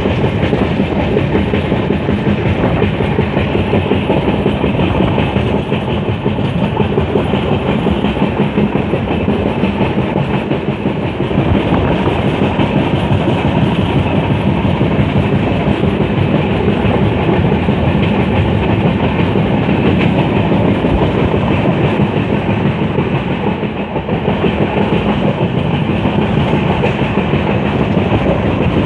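Steady running noise of a moving Indian Railways passenger train heard from an open coach doorway: the wheels rolling over the rails.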